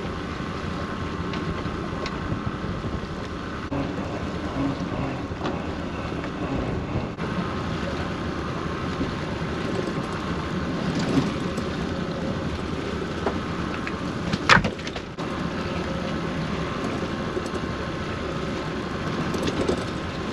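Small fishing boat's engine running steadily, with wind on the microphone. A single sharp knock comes about two-thirds of the way through.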